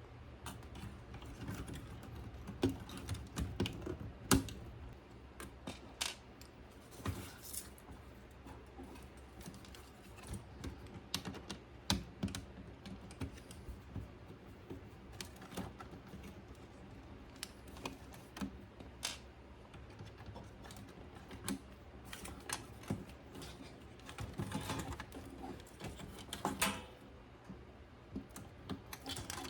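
Irregular light clicks and taps of small parts and hand tools being handled, over a low steady hum.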